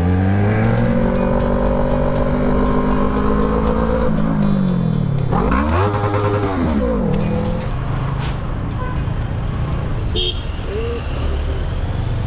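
Motorcycle engine heard from the rider's camera, its pitch climbing as it pulls away, holding, then dropping off about four seconds in. A second short rev rises and falls about six seconds in, followed by a low, steady engine and road noise in traffic.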